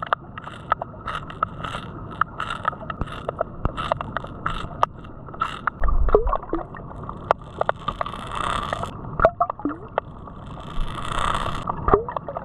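Water sloshing and gurgling around a camera held underwater, with a few bubble blips and many irregular sharp clicks and taps. A dull low thump comes about six seconds in.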